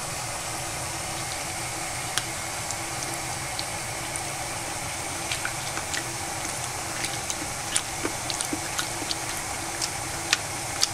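Pot of water simmering: a steady hiss with scattered small pops and ticks, which come more often in the second half.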